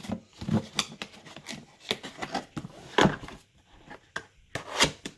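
A cardboard motherboard box being closed and handled: a string of soft knocks and scrapes, the loudest about three seconds in and again near the end.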